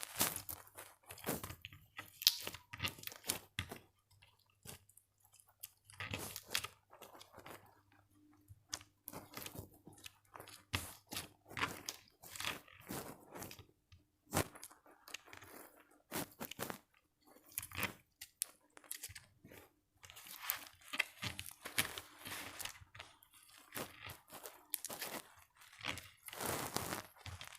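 Irregular, quick crunching and crackling clicks, on and off, with short pauses.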